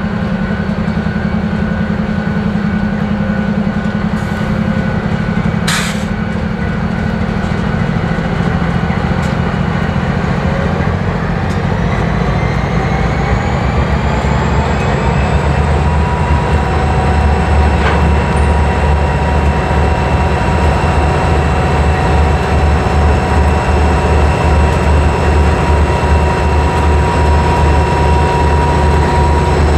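Diesel freight locomotives passing slowly, their engines running with a steady deep rumble. A little over a third of the way in, a whine rises in pitch and then holds steady. There is a single click early on.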